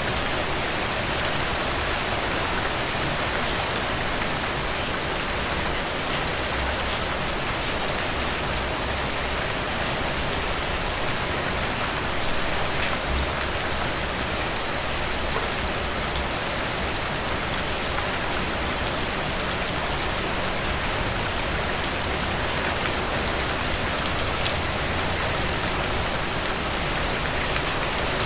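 Steady rain falling on broad glossy leaves, an even hiss with many small close drop taps.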